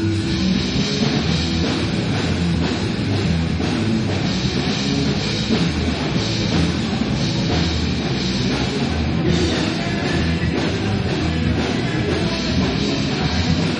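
Rock band playing, with guitars and a drum kit.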